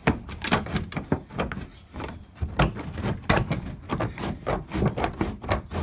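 Aviation tin snips cutting through thin aluminum underbelly sheeting: a quick, irregular series of sharp snipping clicks, several a second.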